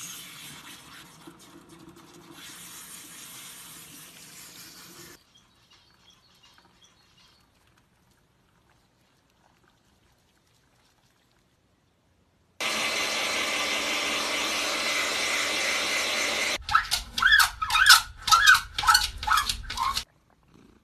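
Water from a kitchen sink's pull-out sprayer running as a cat is bathed: a soft steady hiss for about five seconds, then after a quiet gap a much louder steady spray. Near the end it breaks into a choppy run of short, loud bursts.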